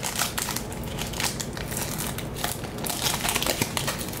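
Foil wrapper of a Panini Diamond Kings baseball card pack crinkling as it is handled and opened, a steady run of quick crackles.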